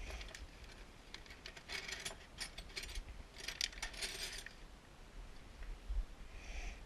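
Metal tool clinking and clicking against the carriage lock of a South Bend 9 inch lathe as it is worked loose. There is a run of quick sharp metallic clicks in the middle, quieter before and after.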